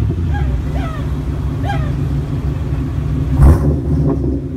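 5.7-litre V8 of a Chevrolet Suburban running through a straight pipe in place of its deleted muffler: a steady, loud low rumble from the exhaust tip, with one short loud blast about three and a half seconds in.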